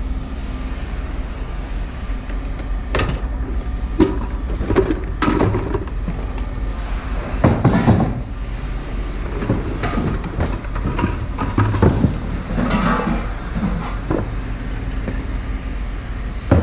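Scrap metal being handled and set down: irregular clanks and knocks, a cluster of them about halfway through, over a steady low hum of machinery or an idling engine.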